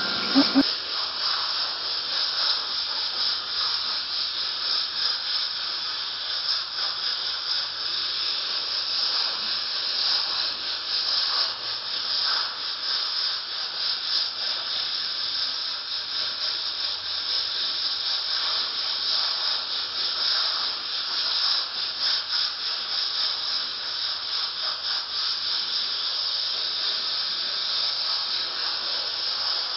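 Pressure cooker venting steam through its spinning weight valve (the whistle): a steady hiss that flickers slightly, showing the cooker is at full pressure.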